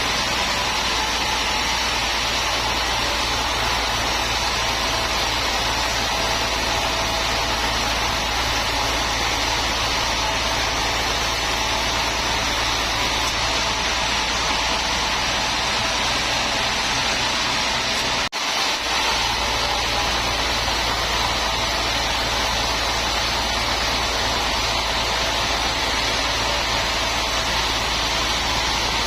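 Sawmill machinery running steadily: a continuous mechanical drone with a hiss on top and a low hum underneath. It drops out for a split second about two-thirds of the way through, then carries on unchanged.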